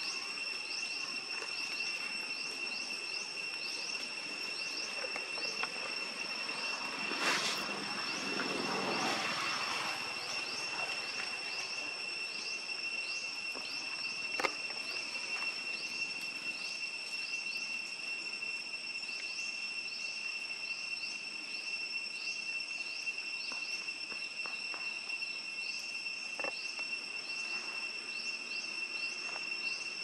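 Forest insects calling: a steady high-pitched drone with rapid repeated chirps over it. About seven seconds in, a louder noisy swell rises and fades over two or three seconds, and a single sharp click comes about halfway through.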